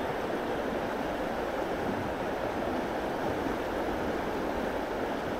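Steady rushing of flowing stream water, an even noise with no distinct events.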